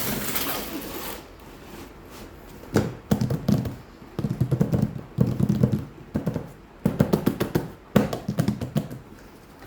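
Hands handling a plastic toy and its packaging: a brief rustle, then several bursts of rapid clicking and tapping.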